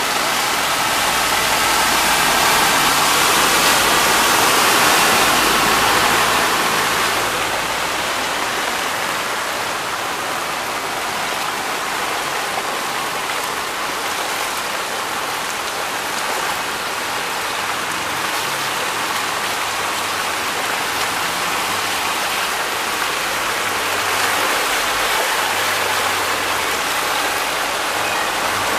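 Heavy rain pouring onto a flooded street: a steady rush of falling and running water. A bus drives through the floodwater in the first few seconds, and the sound is louder until about six seconds in.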